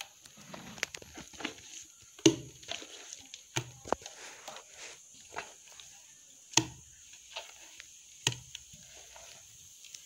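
Thick urad dal batter scooped by hand out of a tilted wet grinder's steel drum into an aluminium pot, the grinder switched off. Scattered sharp knocks and scrapes of hand, batter and metal, the loudest about two and six and a half seconds in.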